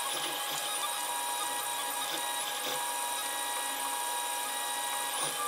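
Protomaker Sprint FDM 3D printer running mid-print, a steady whine from its motors with several steady tones over a light hiss.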